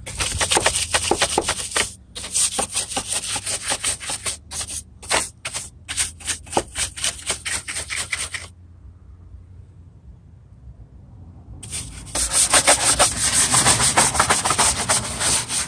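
Stiff bristle brush scrubbing degreaser-soaked engine bay surfaces in quick back-and-forth strokes. It stops for a few seconds past the middle, then starts scrubbing again.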